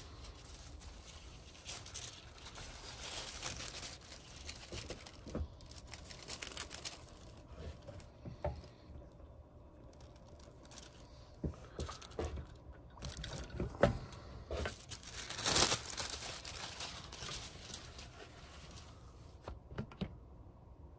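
Hand work at a cobbler's bench while leather soles are being dyed: repeated rustling and crinkling with scattered light knocks and taps, one sharper knock a little past the middle.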